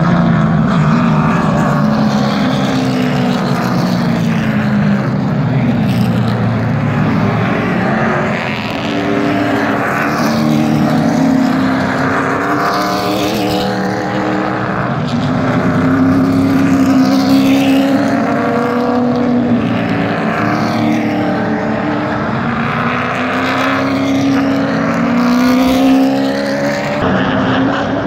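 A field of super late model stock cars' V8 engines running laps of a short oval, several engine notes rising and falling over one another as cars accelerate and pass.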